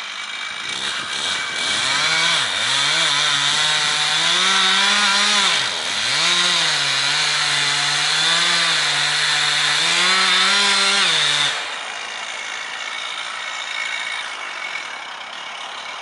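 Gasoline chainsaw at full throttle cutting into the base of a large tree trunk. Its pitch dips twice as the chain bogs down in the wood. About eleven and a half seconds in, the throttle is released and it drops back to a low idle.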